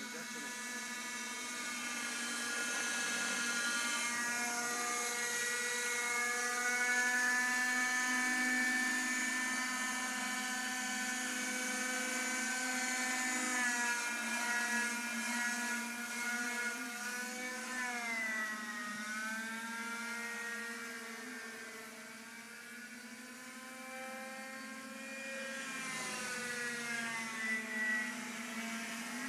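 Radio-controlled helicopter and home-made tricopter flying, a continuous high-pitched motor and rotor whine. Its pitch rises and falls as they manoeuvre, with a sharp swoop in pitch about two-thirds of the way through.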